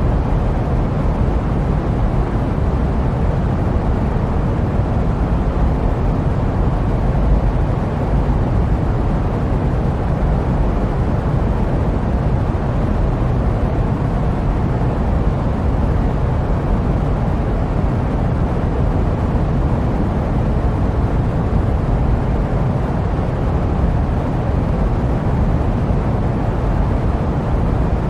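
Steady jet aircraft noise used as white noise: an even, unchanging low rush with most of its weight in the low end and little hiss above.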